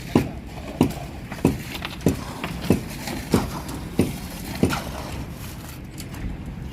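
A regular thudding knock, about three every two seconds, which stops about five seconds in, over a steady low rumble.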